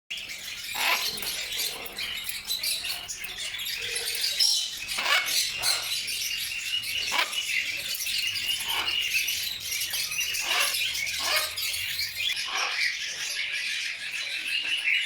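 Parrots squawking in short, sharp calls that drop in pitch, about one a second, over a continuous high chatter of birds.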